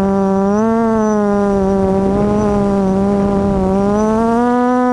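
QAV400 FPV quadcopter's electric motors and propellers whining, heard through the onboard camera. The pitch sags and rises gently as the throttle changes, with a noisy rush of air around the middle.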